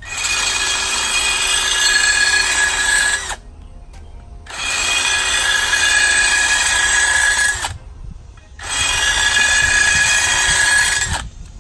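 A power tool's grinding wheel run against the steel edge of a lawn mower blade in three passes of about three seconds each, sharpening it. Each pass is a steady high whine with a grinding rasp and stops sharply between passes.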